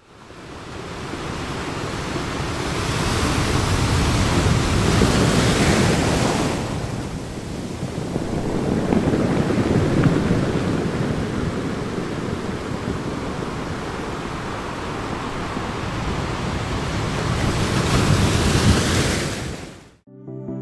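Ocean surf breaking and washing up a beach, steady noise that swells and ebbs in three slow surges. It fades in at the start and cuts off just before the end.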